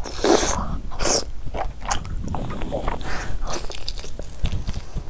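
A person biting and chewing mouthfuls of curried chicken and fufu close to the microphone, in a string of separate bites and chews.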